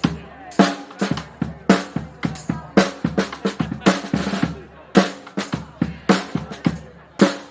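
Street brass band's drums playing a steady groove on their own, with a heavy beat about once a second and lighter hits between.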